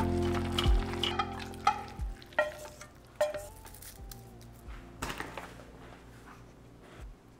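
Chopsticks stirring cooked instant ramen: wet noodle and broth sounds, with short clinks of the chopsticks against the pot and bowl that thin out and fade after about two seconds.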